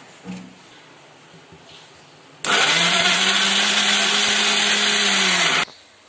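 Crompton electric mixer grinder running, grinding chopped tomatoes into a paste. It starts suddenly about two and a half seconds in, runs steadily for about three seconds, then stops.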